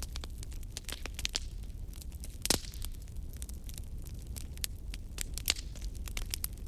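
Wood fire burning in a fireplace: a low steady rumble of flames with irregular crackles and pops, the loudest snap about two and a half seconds in.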